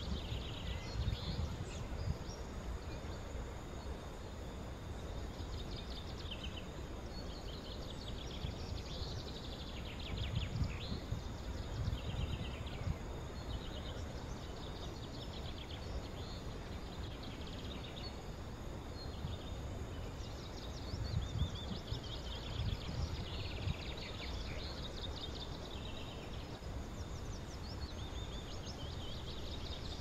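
Several wild birds calling and singing in short chirps and trills, over a low rumble of wind that swells and fades.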